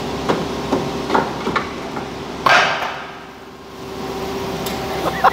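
Hose-fed air tool in a car repair shop: a few short knocks, then a sharp burst of hissing air about two and a half seconds in, over a steady shop hum.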